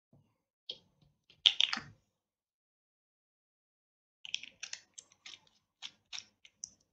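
Computer keyboard typing: a scattered run of separate key clicks, with a louder clatter about a second and a half in.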